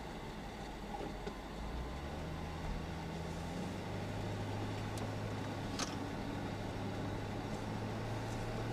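Car engine and road noise heard from inside the cabin. The engine note steps up in pitch about two and three and a half seconds in as the car picks up speed, with a faint click about six seconds in.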